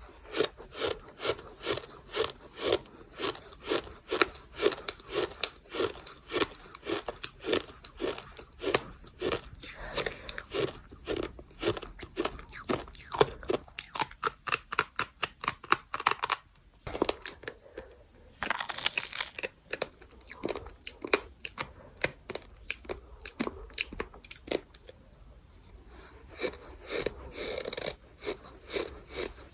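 Compacted gritty sand crunching as it is crushed: a steady run of sharp crunches about two a second. There is a brief pause about two-thirds through, then a longer grainy crumble.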